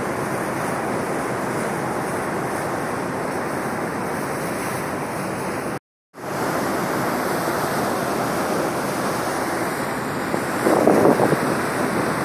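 Steady rushing and hissing of a ferry's churning, foaming wake, with wind buffeting the microphone in louder gusts near the end. The sound cuts out completely for a moment about six seconds in.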